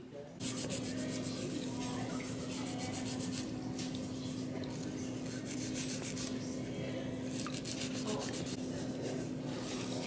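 Pedicure foot-spa whirlpool running: a steady motor hum with the noise of water churning in the basin. It comes in suddenly just after the start.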